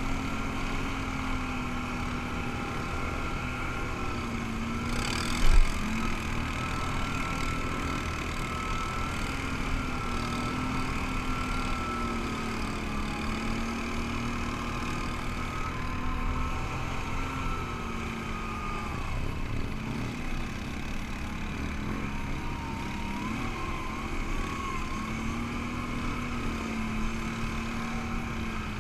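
ATV engine running under way on a dirt trail, its pitch rising and falling gently as the throttle changes. A single sharp knock about five and a half seconds in.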